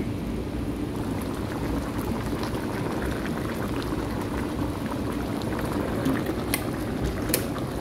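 Creamy mushroom and beef sauce bubbling at a boil in a nonstick frying pan: a steady crackle of popping bubbles. Two sharp clicks near the end.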